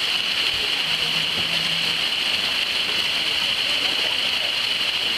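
Rain falling steadily on a shallow pool and wet paving, a dense, even hiss.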